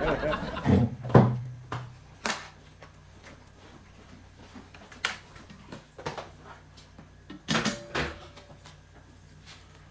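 A handful of separate knocks and clunks from things being handled, over a faint steady low hum. The loudest come about a second in and again near the eight-second mark.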